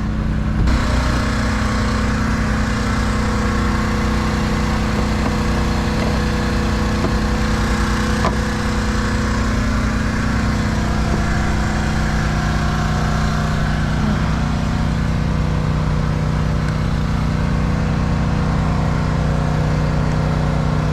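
A vehicle engine idling steadily close by.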